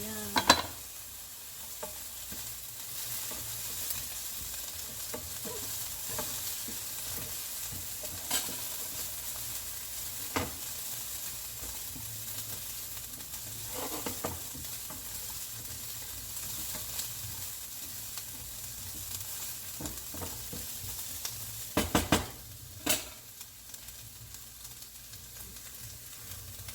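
Ginger, garlic and onion sizzling in hot oil in a pan while being stirred, with scattered clicks and knocks of the utensil against the pan. A few louder knocks come about three-quarters of the way through.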